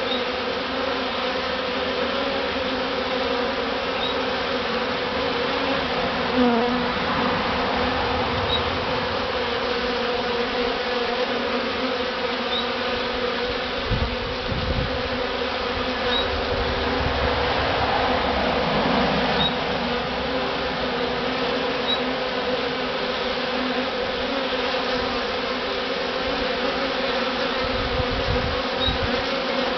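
Dense, steady buzzing hum of a large honey bee swarm moving into a hive box at close range, with a few brief low bumps on the microphone.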